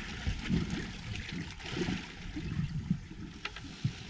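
Water sloshing and lapping against a bay boat's hull in uneven low splashes, with a couple of light clicks near the end.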